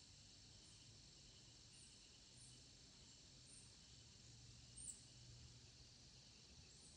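Near silence: faint outdoor ambience with a steady high hiss and a few brief, faint high chirps, one a little louder about five seconds in.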